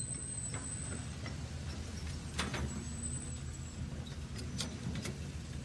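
Small electric motor and gearbox of a toy radio-controlled tracked dump truck running as it drives over sand, a steady low hum with a few sharp clicks.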